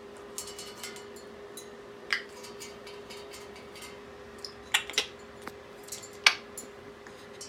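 Scattered sharp clicks and taps from a pet parrot's beak, a few of them louder snaps, over a steady faint hum.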